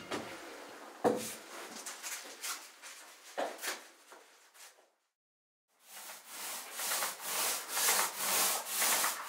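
A metal paint pail is set down on the floor with a knock about a second in, followed by scattered scraping and handling noises. From about six seconds in, diatomaceous-earth wall paint is rolled onto a wall in even rubbing strokes, about two a second.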